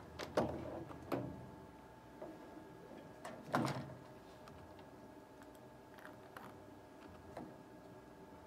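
A few scattered soft knocks and clicks, the loudest about half a second and three and a half seconds in, over a faint steady hum.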